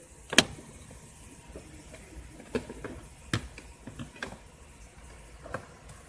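Plastic interior trim panel being pried loose, its clips snapping free: one loud snap about half a second in, then several lighter clicks and knocks over the next few seconds.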